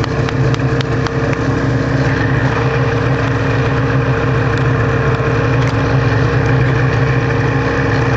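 Polaris snowmobile engine running at a steady idle, its pitch and level even throughout.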